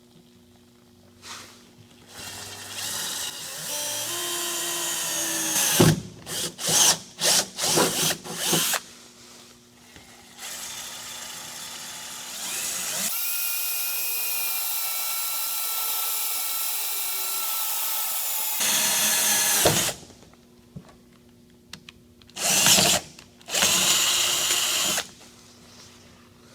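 Power drill boring mounting holes through a pickup truck's bed, run in bursts: a string of short trigger pulls about six to nine seconds in, then a long steady run of about ten seconds, and two more short bursts near the end.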